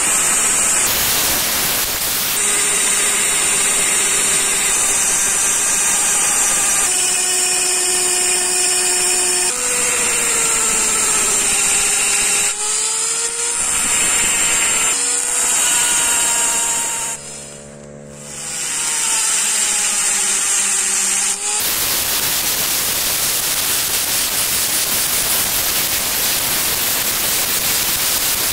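Flex-shaft rotary engraving machine with a tungsten bit cutting a pattern into the steel of an axe blade made from an old circular saw, giving a steady high whine while the motor's pitch shifts now and then. Just past the middle the motor slows and drops away briefly, then picks back up. Over the last third the cutting turns into a rougher, noisier grind.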